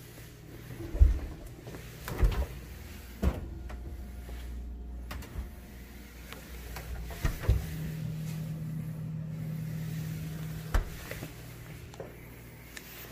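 Refrigerator door being pulled open and swung shut by hand, with several dull thumps, the loudest about a second in, and handling noise. A steady low hum runs for a few seconds in the second half.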